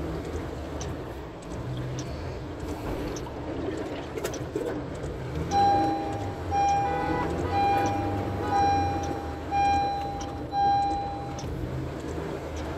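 Engines running in slow traffic on a flooded road, and about halfway in a vehicle's warning signal sounds six times, one steady mid-pitched beep about every second.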